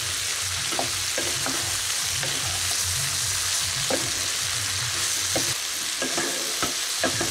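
Ridge gourd pieces sizzling with spices and moong dal in a non-stick pan while a spatula stirs them, with a steady frying hiss and short scrapes and knocks of the spatula against the pan now and then.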